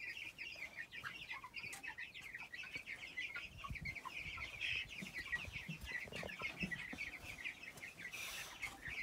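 Many young chicks peeping in a dense, continuous chorus of short, high, falling peeps, with a few soft low knocks partway through.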